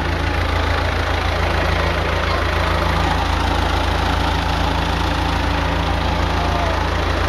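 Diesel engine of a 10 kW generator set running steadily at constant speed, fuelled mainly by wood gas from a gasifier with diesel making up only about 20% of the fuel.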